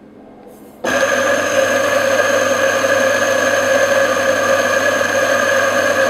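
Grind-by-weight espresso grinder's motor starting about a second in and grinding coffee beans through its burrs into the portafilter at a steady pitch, then cutting off suddenly near the end as its built-in scale reaches the 19 g dose.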